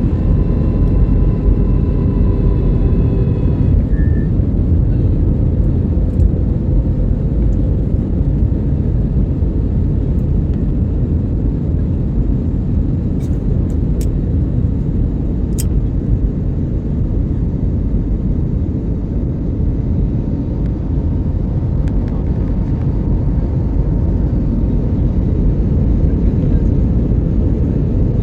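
Passenger airliner's engines and airflow heard from inside the cabin: a loud, steady low rumble with a faint constant hum. A few higher whining tones fade out about four seconds in.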